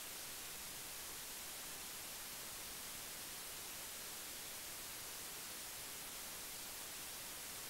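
Steady, even hiss and nothing else: the sound track's background noise in a gap where the program audio has dropped out.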